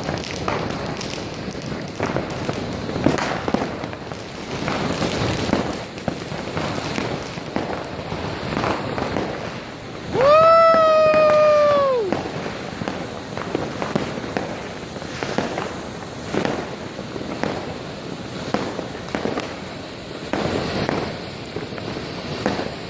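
New Year's fireworks going off all around: a steady run of bangs and crackling firecrackers. About ten seconds in, a long pitched tone with overtones sounds for about two seconds and drops in pitch as it ends.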